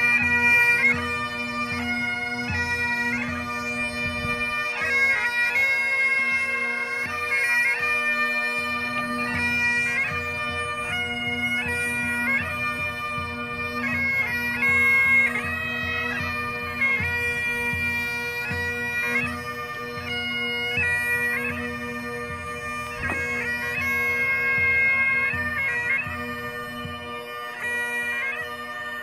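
Bagpipes playing a tune: a melody of quickly changing notes over the pipes' steady, unbroken drone.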